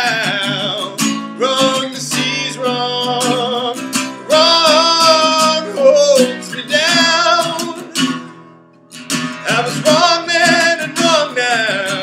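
A song: a man singing over a strummed acoustic guitar. The music drops away briefly about two thirds of the way through, then comes back in.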